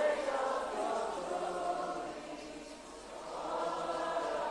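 A congregation singing a slow worship chorus together, holding long notes. The singing dips about three seconds in, then swells again.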